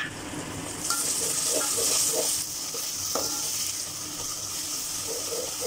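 Ginger-garlic paste and fried onions sizzling in hot oil as they are stirred with a metal slotted spoon in an aluminium pot. The sizzle swells about a second in, is loudest briefly, then settles to a steady frying hiss.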